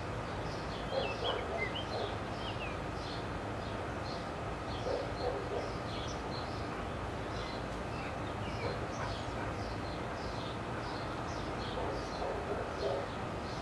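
Birds chirping over and over, short high calls a few times a second, over a steady low hum.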